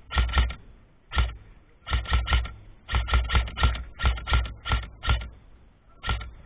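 Airsoft gun firing a quick run of single shots in short strings, several a second, each a sharp click with a low thump. The firing pauses briefly about a second in and again near the end.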